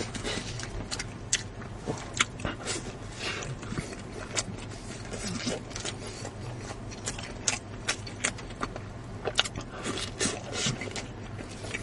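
Close-up eating sounds: chewing with an irregular run of sharp clicks and smacks, several a second.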